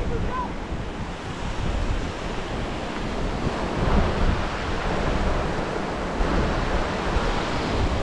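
Wind buffeting the microphone over a steady rushing hiss, with gusts rising and falling.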